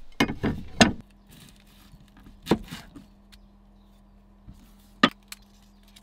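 Sharp clacks and knocks of kitchen knives being handled: a quick cluster at the start, another about two and a half seconds in, and a single loud knock near the end.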